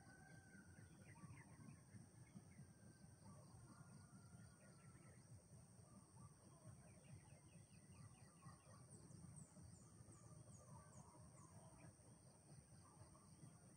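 Near silence: faint rural outdoor ambience with a steady high hiss and scattered distant bird chirps, including a quick run of about six high chirps about two-thirds of the way through.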